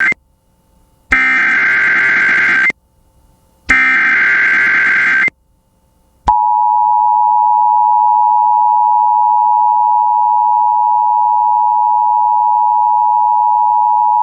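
Emergency Alert System header: the tail of one SAME digital data burst, then two more buzzing data bursts of about a second and a half each, a second apart. About six seconds in, the steady two-tone EAS attention signal starts and holds for about eight seconds.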